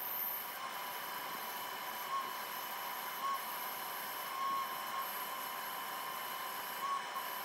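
Bandsaw running with its blade cutting through a laminated wooden block, a steady whine and hiss with a few brief louder blips.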